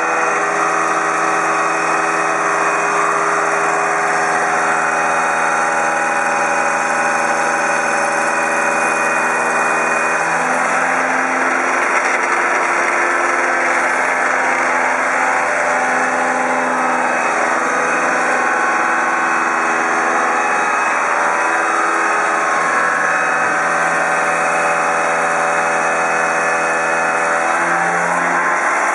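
Deckel FP2NC milling machine running a 2-inch indexable insert face mill through 6061 aluminum, a 0.200-inch-deep cut at 1200 RPM and 21 inches per minute feed: a steady, loud machining drone of several tones over a hiss. The pitch of the tones steps to new notes about ten seconds in and again near the end.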